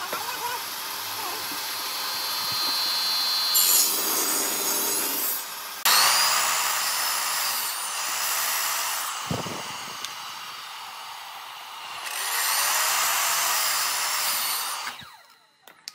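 A power tool working wood, running in several loud passes with a quieter stretch in the middle, then stopping near the end.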